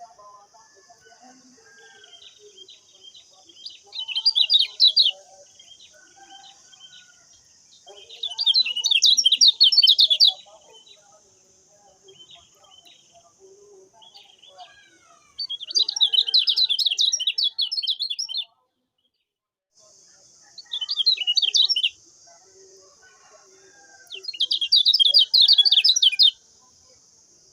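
Lemon-bellied white-eye (kecial kuning) singing in five bouts of rapid, high twittering, with fainter chirps between them. A steady high hiss lies underneath, and everything drops out briefly about two-thirds of the way through.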